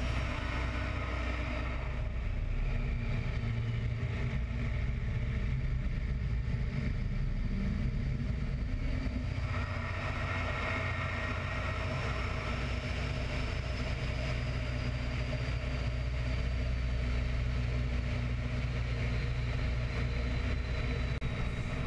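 Open-cockpit biplane's radial engine running steadily in flight, with wind noise from the slipstream over the wing-mounted camera.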